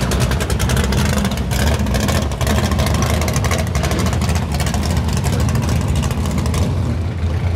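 Drag race cars' engines idling in line, the nearest with a loud, uneven crackling exhaust beat over a deep low rumble. The crackle fades near the end as that car pulls away, and the low rumble of the other engines carries on.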